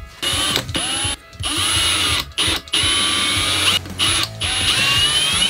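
Cordless drill-driver driving a screw into aluminium tubing through a 3D-printed plastic foot, run in a series of short trigger bursts. The motor whine rises each time it spins up.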